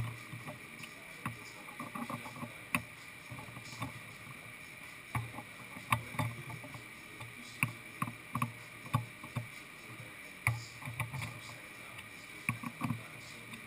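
Irregular metallic clicks and light knocks as a T-handle hex key turns cap screws in an aluminium fixture plate on a CNC mill table, over a faint steady high whine.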